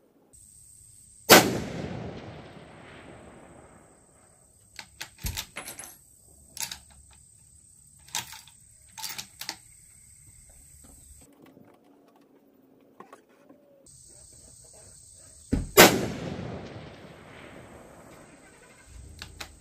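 Two centerfire rifle shots from a .25-06, about fourteen seconds apart, each with a long rolling echo fading over two to three seconds. Between the shots come a series of short sharp clicks and knocks.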